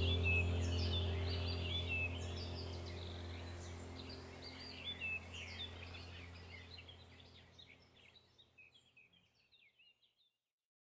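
Small birds chirping over a steady low hum, all fading out smoothly together until silent.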